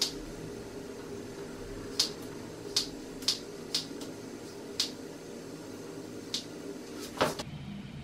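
Scissors snipping through long wet hair: about eight crisp single snips at uneven intervals, some half a second apart and some over a second apart.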